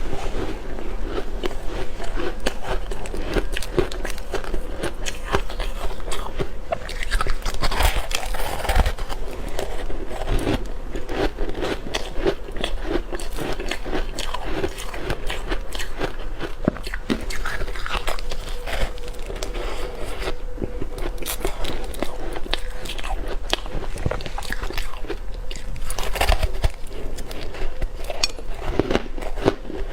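Close-miked crunching of ice being bitten and chewed: a continuous run of crisp cracks and crackles, bite after bite.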